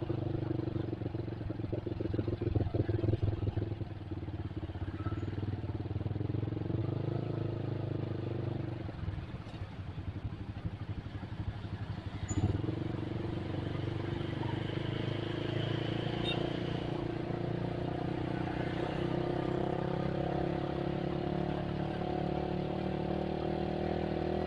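Motorcycle engine running while riding in street traffic, with other motorcycles around. The engine sound fades for a few seconds around the middle, then comes back with a sudden jump about twelve seconds in and runs steadily.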